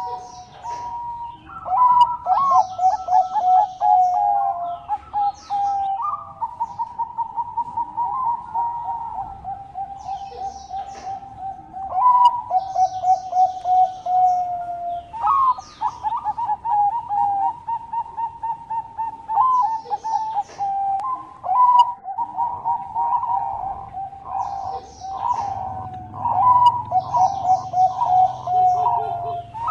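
Zebra dove (perkutut, Bangkok strain) cooing continuously: phrase after phrase of rapid rippling, trilled coos, each opening with a short rising note, with brief high chirps between phrases.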